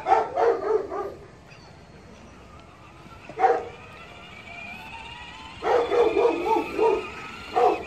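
Small dog barking in short, high yips: a quick run of barks at the start, a single bark about three and a half seconds in, another run around six seconds, and one more bark near the end.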